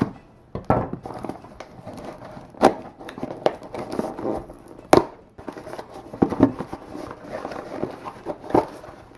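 Handling noises: about five sharp knocks with rustling and crinkling between them, spread unevenly.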